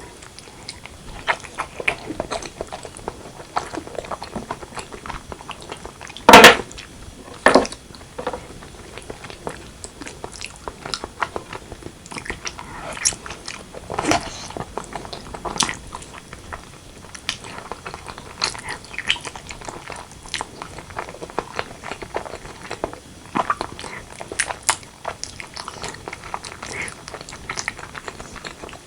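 Close-miked chewing and biting of braised pork leg and white rice: a steady string of small clicks and crunches, with two loud sharp sounds about six and seven and a half seconds in.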